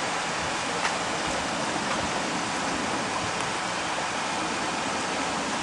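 Steady rain falling, an even hiss with a few sharp ticks.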